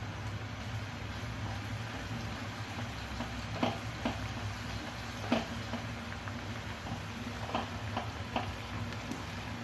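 Ground coriander, cumin and other spices sizzling in hot oil in a cooking pan as they fry, with a few light knocks scattered through as they are stirred.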